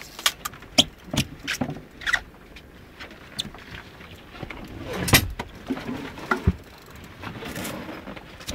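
A string of irregular sharp clicks and knocks, the loudest about five seconds in, over a faint steady background.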